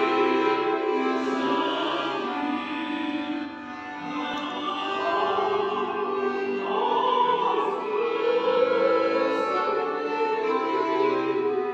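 A woman singing classical, operatic-style song, holding long notes with vibrato.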